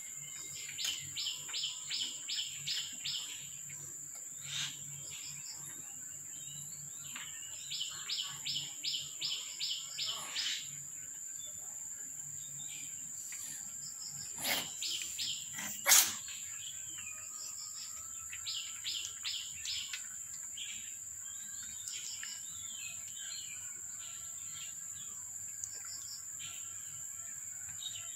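Small songbird singing in runs of about eight quick, evenly spaced high chirps, repeated several times, over a steady high-pitched whine. A single sharp click about sixteen seconds in is the loudest sound.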